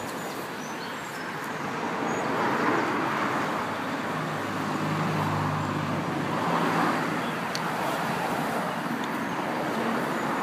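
Road traffic going past, with cars swelling by about two and a half and about seven seconds in.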